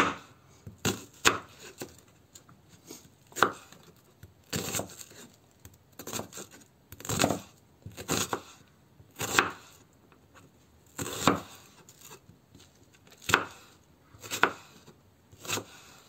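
Chef's knife slicing an onion on a wooden cutting board. Each cut ends in a sharp knock of the blade on the board, at roughly one stroke a second, unevenly spaced.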